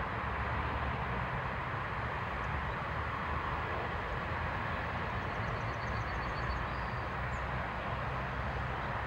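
Steady outdoor background rumble and hiss, with a faint, quick trill of short high notes from a small bird about five seconds in.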